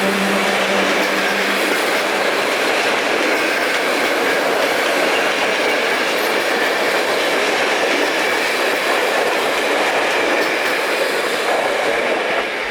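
Regional passenger train hauled by an EP07P electric locomotive pulling out, its cars rolling past with steady wheel-on-rail noise. A low hum stops about two seconds in.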